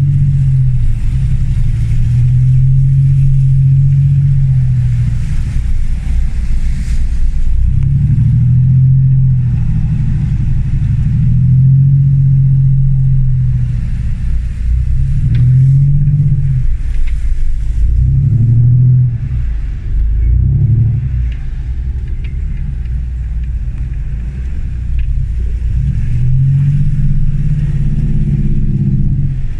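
Land Rover Discovery 1's 300Tdi four-cylinder turbodiesel engine driving off-road, revving up and easing off again and again, its pitch rising and falling in swells a few seconds long.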